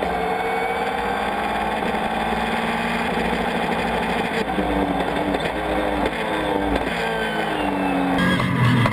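Race car engine heard from inside the cabin under hard acceleration. Its pitch climbs in a series of rises in the second half as it pulls through the gears.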